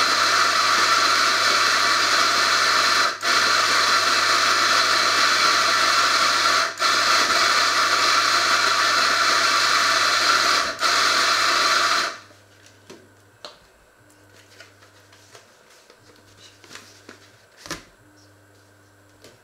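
Electric coffee grinder running steadily, with three brief drops as it is pulsed, then cutting off suddenly. Soft clicks and knocks of handling follow.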